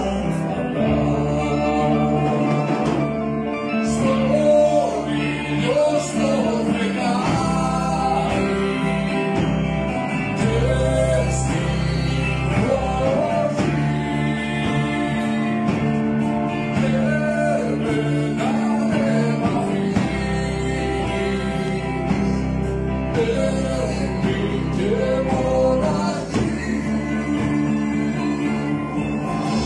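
Live band performing: a man singing in Greek into a microphone over electric guitars and a drum kit.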